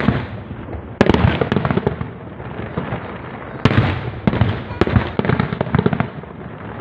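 Aerial fireworks shells bursting, with loud bangs about a second in and again past the middle, each followed by a dense crackling as the glittering stars break up, and more scattered reports between.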